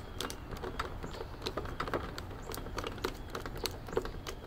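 Quick, irregular small clicks and ticks, several a second, of a hand screwdriver driving a Phillips screw back into a portable speaker's battery-compartment cover.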